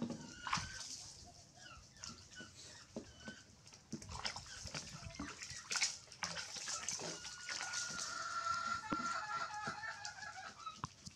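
Wet rubbing and splashing as a baby macaque is washed with soapy water, with short chirping calls in the first few seconds and a longer steady call from about seven seconds in.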